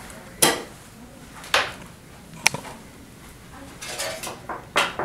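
A few separate hard clacks about a second apart, then a quicker run of knocks and rattles near the end.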